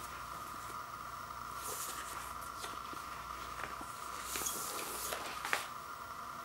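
Black paper inner sleeve rustling and scuffing as a vinyl LP is handled and slid out of it, with a sharp tick about five and a half seconds in. A steady high hum runs underneath.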